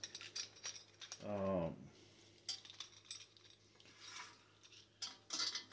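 Faint, scattered metal clicks and ticks of small hardware being handled: bolts, lock nuts and wheel parts going onto the outdoor gas heater's base. A brief hummed voice comes a little over a second in.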